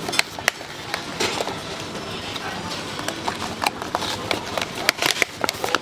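Irregular sharp clacks and knocks, like cooking utensils handled at a street-food grill stall, over a low din of background voices.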